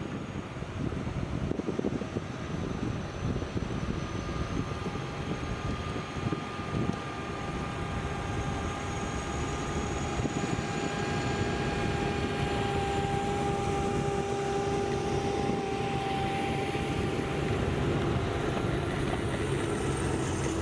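Snowcat groomers running and moving past, a steady engine rumble with a high whine over it, growing louder toward the end.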